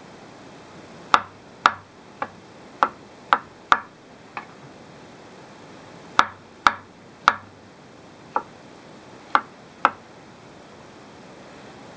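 Chef's knife slicing white mushrooms on a wooden cutting board: about a dozen sharp taps of the blade hitting the board, in uneven runs with a short pause near the middle.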